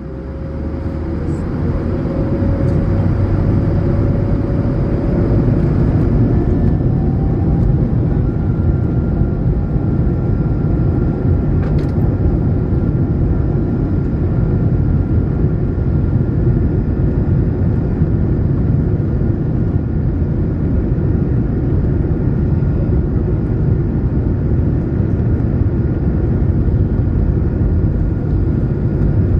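Airbus A220-100's Pratt & Whitney geared turbofans heard from the cabin, spooling up with a rising whine over the first several seconds and then holding a steady tone over a heavy low rumble, typical of the takeoff roll.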